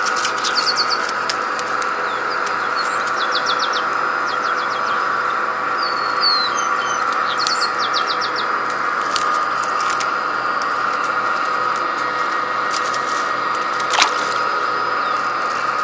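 Small birds chirping in quick series of short notes over a steady background drone. Near the end, one short splash as a small piranha is tossed back into the water.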